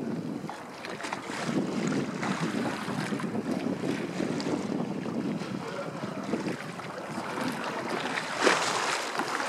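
High storm-surge river water lapping and sloshing, with wind buffeting the microphone, as a rough, uneven rush. One sharper, louder hit comes near the end.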